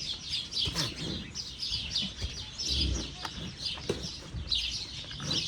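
Many small birds chirping constantly in quick, overlapping chirps, with a few faint low thumps underneath.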